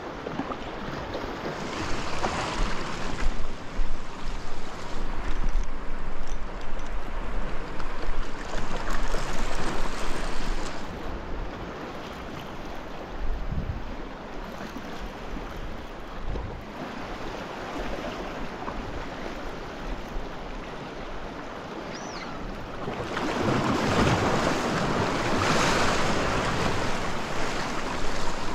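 Waves washing and breaking against a rocky shoreline, with wind buffeting the microphone. The surf swells louder twice, in the first half and again near the end.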